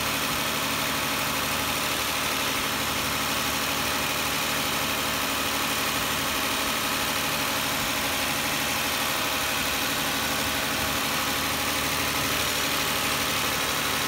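Infiniti I30's 3.0-litre V6 idling steadily while Seafoam spray is drawn into the intake through a vacuum line, with a steady airy hiss over the engine.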